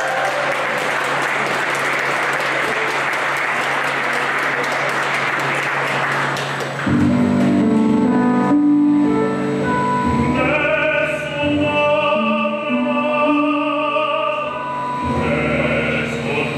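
Audience applauding for about seven seconds, then a small group of men's voices starts singing opera together, in held notes.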